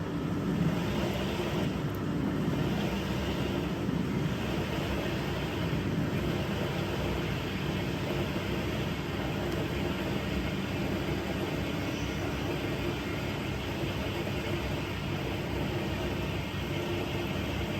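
Vulcan Dishlex Mk8 dishwasher running steadily in the heating phase of its normal wash: the wash motor hums under the constant hiss of water spraying inside the tub.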